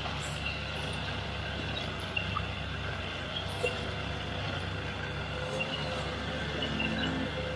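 Stihl KM56 two-stroke string trimmer running steadily, its spinning line cutting grass, with a few light ticks.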